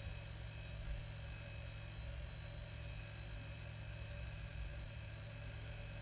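Radio-controlled model Liebherr 922 excavator's motor running with a steady low hum and a thin constant whine as its grab works on rocks.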